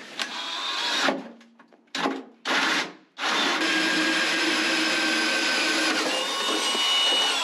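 Power drill driving a new hole saw through the cored fiberglass hull. It spins up briefly, gives two short bursts, then cuts steadily for about four seconds and stops near the end.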